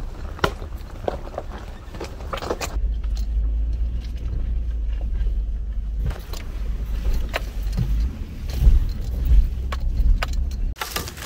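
A vehicle driving a rough, muddy dirt road: a low rumble with scattered knocks and rattles over the bumps, heaviest through the middle and easing near the end.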